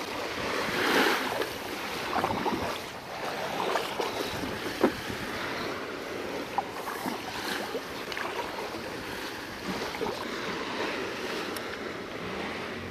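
Water splashing and lapping against a kayak, with wind on the microphone; a sharp knock stands out about five seconds in.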